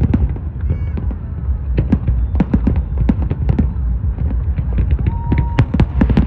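Fireworks going off in rapid bangs and crackles over a steady low rumble, with a brief whistling tone about five seconds in.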